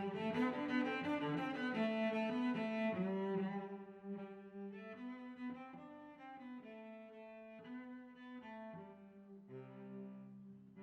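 Background music led by bowed string instruments, cello-like, playing a melody of held notes, louder for the first few seconds and then softer.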